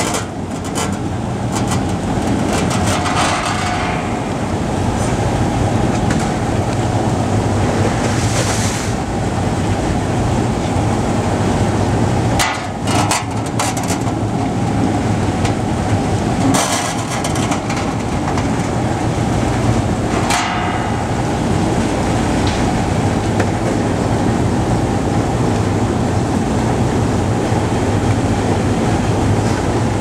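Industrial stainless-steel apple washing machine running: a large spiral screw drives the apples through the water sprays with a steady low hum and spray noise. A few short clattering knocks come from apples tumbling onto the steel.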